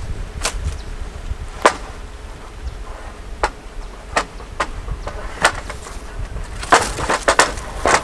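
Long bamboo pole knocking against a wooden shed frame as it is handled. About ten sharp, hollow clacks come spaced out at first, then several in quick succession near the end.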